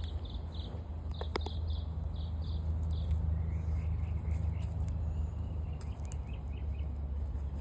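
Birds chirping: a run of short high chirps, about three a second, then a lower, quicker series, over a steady low rumble.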